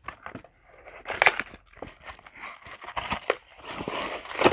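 Trading-card packaging being handled as a mini box is opened and its foil booster packs are taken out: crinkling and rustling, with a few sharper crackles.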